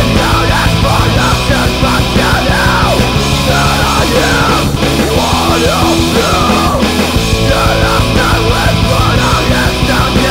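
Loud post-hardcore band music, dense and driving, with a high gliding melodic line over heavy drums.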